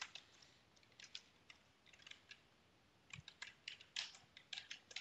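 Faint computer keyboard keystrokes as a command is typed: a few scattered key clicks at first, then a quicker run of them from about three seconds in.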